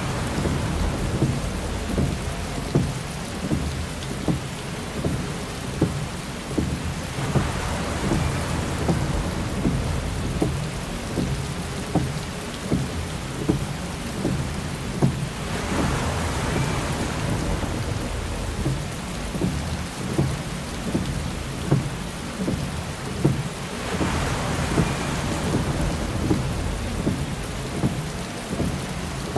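Heavy rain drumming on a car's windshield and body as a dense patter of drops. A swishing swell, the windshield wiper sweeping, comes back about every eight seconds.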